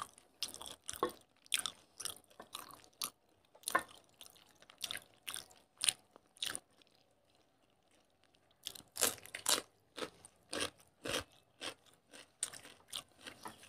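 Two people chewing mouthfuls of rice and fish curry eaten by hand: a run of short, sharp chewing sounds, with a pause of about a second and a half a little past the middle.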